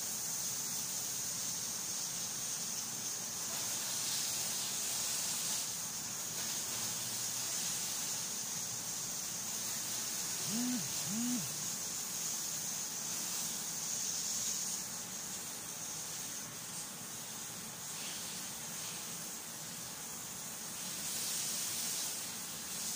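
Steady high-pitched hiss, with two short low calls that rise and fall about ten and eleven seconds in.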